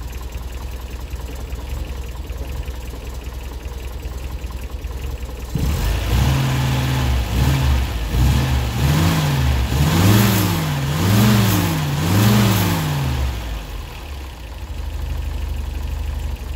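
A 1967 MGB's 1800 BMC B-series four-cylinder engine idles steadily, then is revved up and down several times from about five seconds in, before settling back to idle a few seconds before the end.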